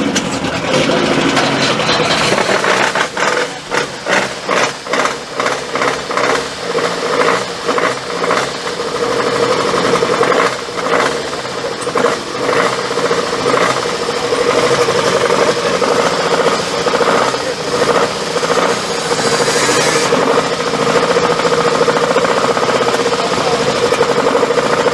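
Alfa Romeo 33 Quadrifoglio Verde Group A race car's 1.5-litre flat-four boxer engine warming up: for about ten seconds it is revved in short repeated blips, then it settles into a steady, fast idle.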